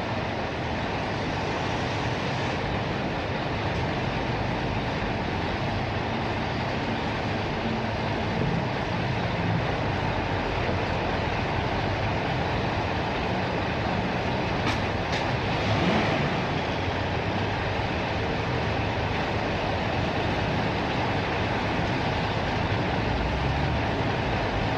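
Construction-site ambience: a steady mechanical rumble of heavy machinery, with a few faint clicks about fifteen seconds in and a brief swell soon after.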